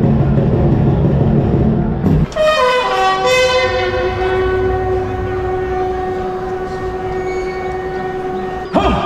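A soldier's long drawn-out shouted command, which drops in pitch and then holds one steady note for about six seconds before breaking off. It follows about two seconds of loud crowd din.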